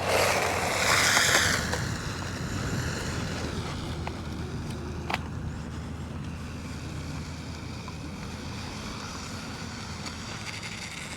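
Small electric RC car taking off: a loud rushing burst for about the first second and a half, then a fainter steady whir of motor and tires that slowly fades as it runs away, with one sharp click about five seconds in.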